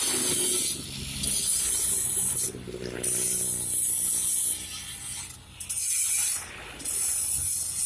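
Five bursts of harsh hissing noise, each about one to one and a half seconds long with short breaks between them, from metalwork on a steel pipeline weld.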